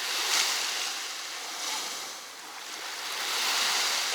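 Small sea waves washing onto the beach, the hiss of the surf swelling three times, most strongly near the end.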